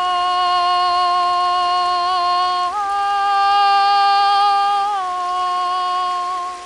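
A woman's voice singing long, wordless held notes in a vocal improvisation. One steady tone steps up to a slightly higher note about three seconds in and drops back near the five-second mark. A river's flowing water runs faintly beneath.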